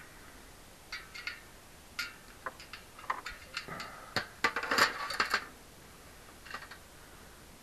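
Hand-handling noises on a bicycle wheel: scattered clicks, taps and brief scraping as the tire, inner tube and rim are worked apart. The noises come in a busy cluster in the middle, then stop.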